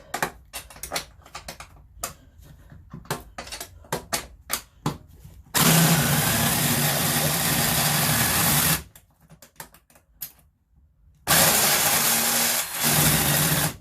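Porter-Cable impact drill hammering on a bolt in two runs of about three seconds each, backing the bolt out. Before them come about five seconds of light clicks and knocks.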